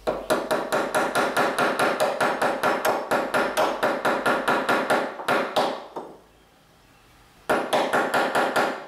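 A hammer rapidly tapping on a metal part, about five ringing strikes a second, while a parking brake assembly is put back together. The tapping stops about six seconds in and starts again briefly near the end.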